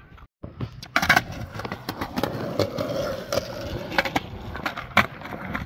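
Skateboard wheels rolling over a concrete sidewalk, with sharp clacks every second or so as they cross the joints between slabs.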